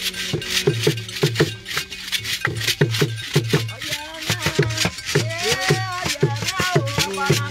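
Live drumming with a steady low beat and sharp shaken rattle strokes, with voices singing along from about halfway through.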